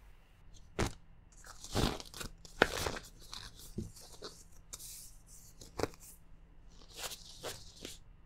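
Thin disposable plastic glove crinkling and rustling as it is pulled on and fitted over the hand, in a series of short crackles, the loudest about two to three seconds in.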